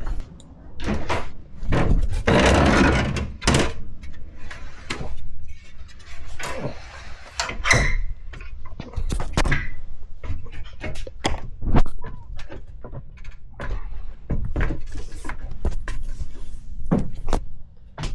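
Irregular knocks, thuds and clicks of objects being handled and moved, with a longer rustling or scraping stretch about two to three seconds in.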